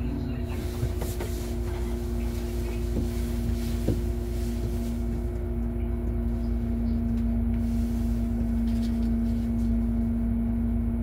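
City bus at a standstill, heard from inside the cab: a steady low rumble with a constant hum from the vehicle's running machinery.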